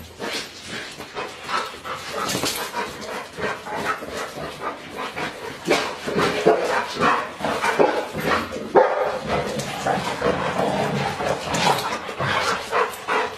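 A dog barking over and over in short, closely packed barks, with whimpering in between, agitated at a Christmas tree.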